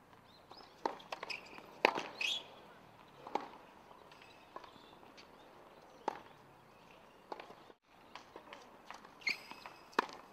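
Tennis rally: a ball struck back and forth by rackets in sharp pops about every one and a half seconds, the loudest hits about two seconds in and near the end, with the players' footsteps on the court between strokes.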